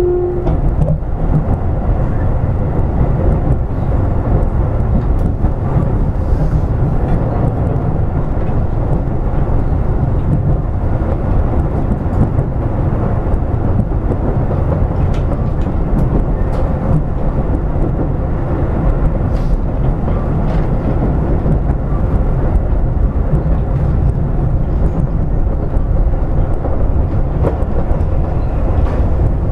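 Running noise of a Keio 8000 series electric train at speed, heard inside the car: a steady rumble of wheels on rail with a few faint clicks.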